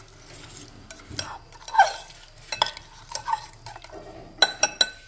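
Kitchen knife cutting set jelly in a glass bowl, its blade scraping and tapping on the glass in irregular strokes, with a quick run of ringing clinks about four and a half seconds in.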